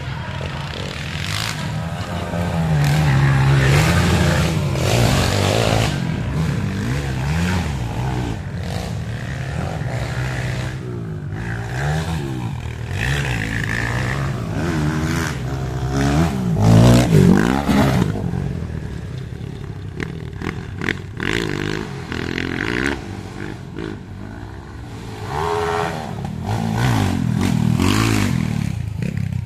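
Small-displacement motocross bikes (Kawasaki KLX and Honda XRM 125) racing around a dirt track, their engines revving up and down over and over as they accelerate, shift and pass, loudest about 17 seconds in.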